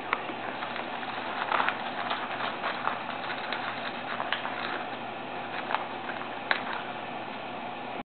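African red-bellied parrot digging and biting into a small cardboard box packed with crinkle-cut paper shred: irregular rustling with sharp crackles and snaps from the paper and cardboard, a cluster of them about a second and a half in, over a steady background hiss.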